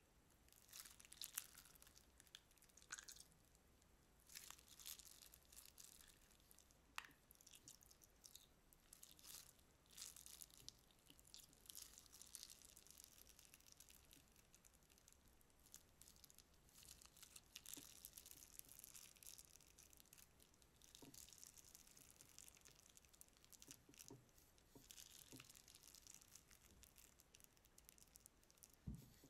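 Faint sticky squishing and crackling of clear glitter slime being squeezed, kneaded and stretched by hand, in irregular clusters of small wet clicks, with a soft low thump near the end.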